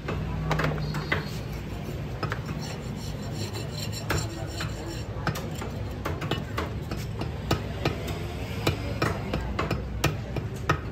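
Knife scraping and cutting at a goat's head, a string of irregular rasping scrapes and sharp clicks, over a steady low hum.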